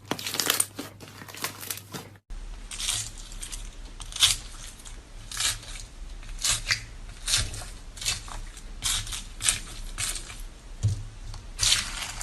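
Crunchy slime being squeezed and pressed, giving a run of crackling crunches about one and a half a second; there is a sudden edit cut about two seconds in.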